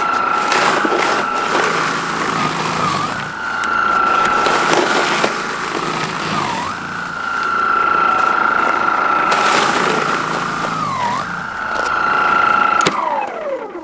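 Einhell GE-ST 36/40 Li E-Solo 36V brushless cordless snow blower running in deep snow: a steady high motor whine whose pitch sags briefly three times as the machine is pushed into the snow and loaded, then winds down near the end as it is switched off.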